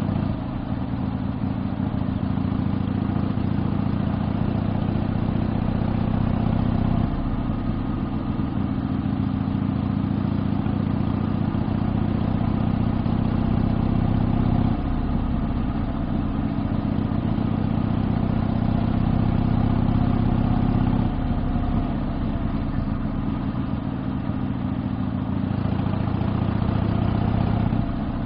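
1972 Harley-Davidson Sportster XLCH's 1000 cc ironhead V-twin exhaust while riding along at steady speed. The engine note changes abruptly about three times.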